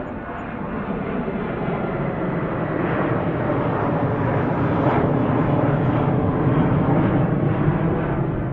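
Jet airliner engines, a dense rushing noise that grows louder over the first few seconds and then holds steady.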